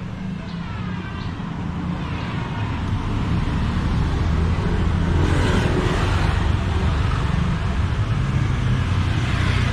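A motor vehicle's engine running low and steady, growing louder as it draws near, with a rushing swell about five seconds in and another near the end.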